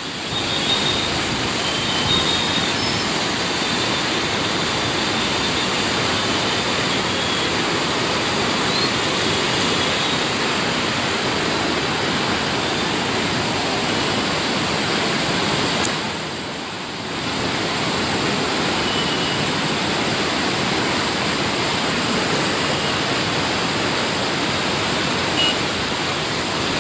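Fast floodwater of the swollen Aji river rushing and churning, a loud steady rush that dips briefly about sixteen seconds in.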